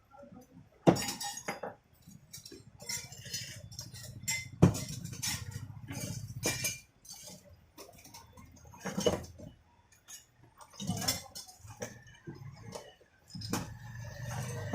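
Metal parts and hand tools clinking and knocking against each other while an electric chipping hammer is taken apart, a series of irregular sharp clinks.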